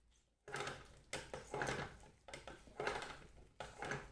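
Kitchen utensils knocking and scraping: a series of about seven short, sharp knocks, each fading quickly.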